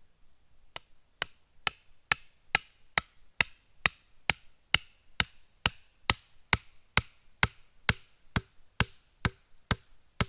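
Steady, evenly paced blows on wood, about two a second and some twenty in all, starting about a second in: a wooden stake being pounded into the ground.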